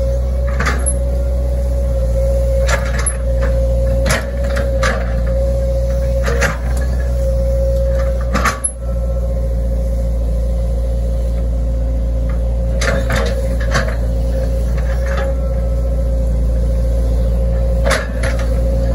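Hitachi ZX110 excavator's diesel engine running under load with a steady hum, with scattered short knocks and scrapes as the bucket tears into grass and soil.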